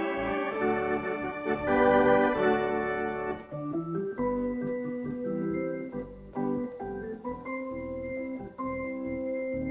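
Hammond C-3 tonewheel organ being played: full sustained chords over deep bass for about the first three seconds, then a lighter, quieter passage of held chords and short melody notes.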